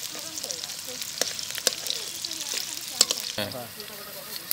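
Sliced onions and green chilies sizzling in hot oil in a large metal kadai, stirred with a metal spoon that clinks and scrapes against the pan a few times.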